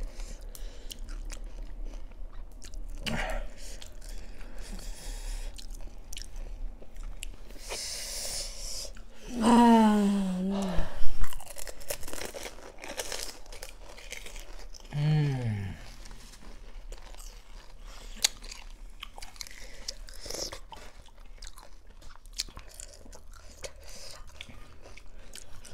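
Panipuri being eaten: crisp fried puri shells crunching and being chewed in repeated small crunches, with two short pitched vocal sounds about ten and fifteen seconds in.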